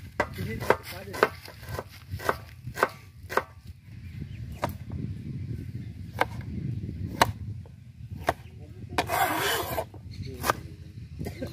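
Kitchen knife chopping vegetables and herbs on a plastic cutting board: sharp knocks of the blade striking the board, about two a second at first, then more spaced out. A brief rasping noise comes about nine seconds in.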